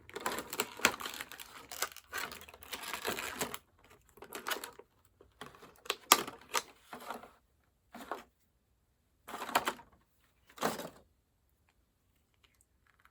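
Plastic and cardboard toy packaging being handled and opened: dense crinkling with sharp clicks for the first few seconds, then a handful of separate short rustles and crinkles.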